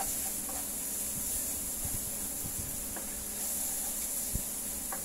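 Spaghetti sauce sizzling in a frying pan as it is stirred with a wooden spatula: a steady hiss with a few light knocks of the spatula against the pan.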